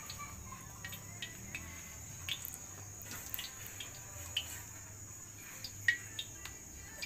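Cooking oil heating in a wok on a portable gas stove, giving off scattered faint ticks and small pops, one sharper pop near the end. A steady high-pitched whine sits behind it.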